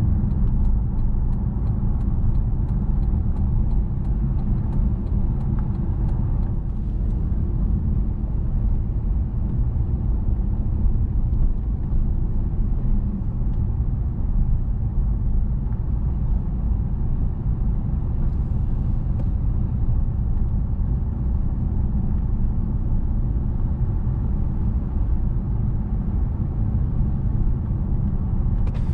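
Car driving along a city road: a steady low rumble of tyres and engine. During the first six seconds or so there is a faint regular ticking, about three times a second.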